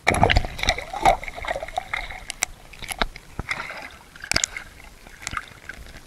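Water sloshing and gurgling around a camera held underwater in shallow seawater. It starts suddenly with a splash and a burst of clicks, then goes on with irregular clicks and crackles while the sandy bottom is churned into a cloud.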